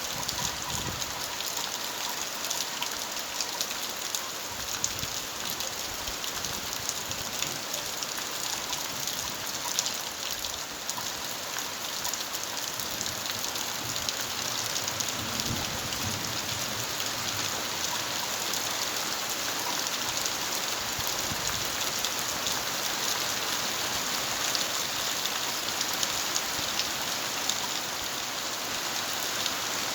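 Steady rain falling, with many individual drops pattering on surfaces.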